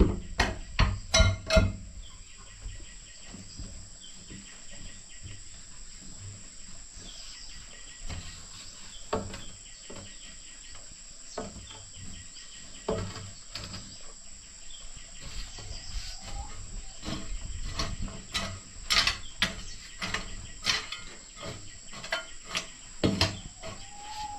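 Hammer knocks: a quick run of about three strikes a second at the start, then scattered single strikes, over a steady high-pitched insect drone.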